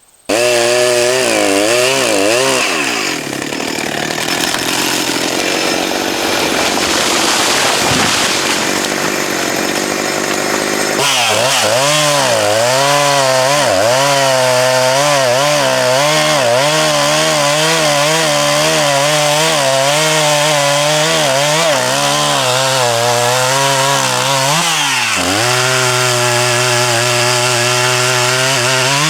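Two-stroke gas chainsaw running at high revs and cutting into dead red oak, its engine note wavering up and down under load. For several seconds in the first half the note is buried in a rough, noisy rasp. Near the end it settles into a steadier high whine after a brief dip.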